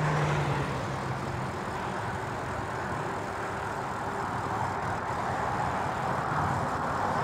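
Steady rush of wind and tyre noise from riding a mountain e-bike downhill on a trail, with a low hum that fades out about a second and a half in.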